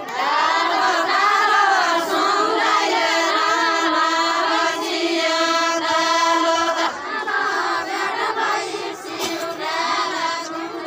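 Group of women singing a deuda folk song together, unaccompanied, with long held notes.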